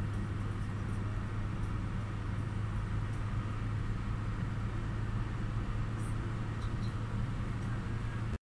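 Steady road and engine noise of a moving car, with a strong low hum, which cuts off suddenly near the end.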